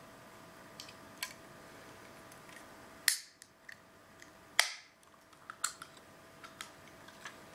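Aluminium energy-drink can being opened by its ring-pull: a few light taps on the tab, then two sharp cracks about a second and a half apart, each with a short hiss of escaping gas, followed by a few small clicks.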